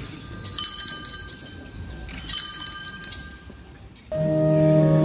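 Altar bells shaken twice, each a cluster of high jingling rings, sounding at the elevation during the consecration. About four seconds in, a sustained organ chord starts.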